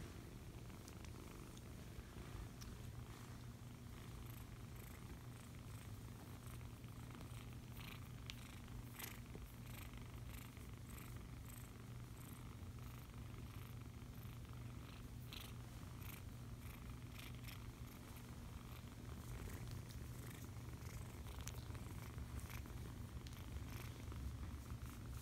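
Young ginger kittens purring steadily while being stroked, a low even rumble. Faint short rustles and clicks come and go, mostly in the middle of the stretch.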